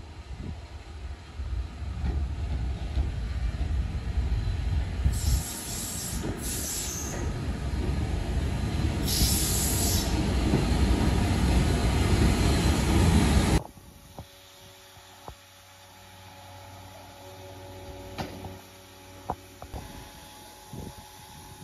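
Steam-hauled train running into a station: a loud rumble of wheels on rail, with two short high-pitched bursts about five and nine seconds in. It cuts off abruptly about two-thirds of the way through, leaving a much quieter steady hum with a few faint clicks.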